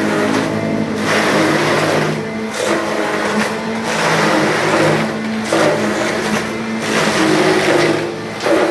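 Four-blade powder grinding machine running on test: a loud, steady motor hum under a rushing whir that swells and eases about once a second.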